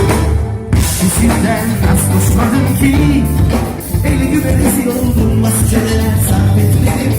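A live band playing a song with a singing voice over it, during a sound check.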